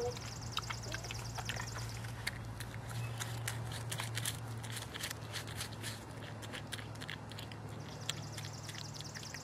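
North American porcupine chewing fruit and vegetables, a run of crisp crunching clicks as it bites and chews. A high, fast trill sounds behind it for the first two seconds and again near the end, over a steady low hum.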